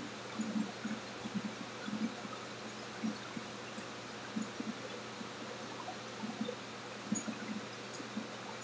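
Whole octopus dipped again and again into a stockpot of water, giving soft irregular splashes and sloshes about once a second. Under them, the steady hiss of a kitchen exhaust hood.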